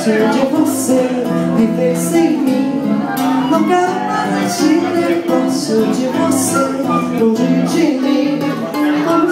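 Live bossa nova band playing an instrumental passage without vocals: acoustic guitar chords under a sustained melody line, with light regular accents from percussion.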